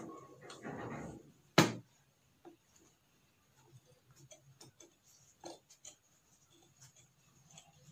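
Scissors cutting through thick three-layer fabric stiffened with fusible interfacing: a rustle of handled cloth at first, then a string of small, faint, crunching snips. A single sharp knock about a second and a half in is the loudest sound.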